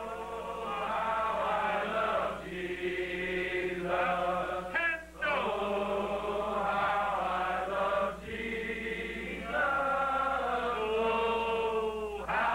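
A congregation of men and boys singing a hymn together, in held phrases of two to three seconds with short breaths between them.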